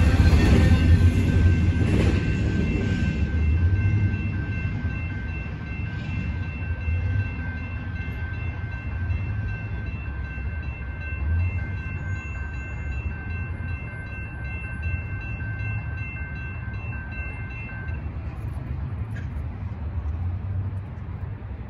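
The end of a freight train rolling through a road crossing, a loud low rumble that dies away over the first four seconds. The crossing's warning bell keeps ringing at a steady fast pace as the gates lift, and stops about 18 seconds in.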